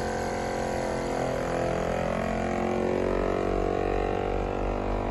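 Semi-industrial vacuum sealer's pump running with a steady hum while it draws the air out of the bag under the closed lid.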